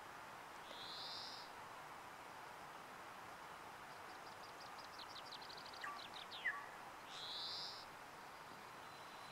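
Faint birdsong: a short high call about a second in and again near the end, with a quick run of high ticking notes between them, over a steady background hiss.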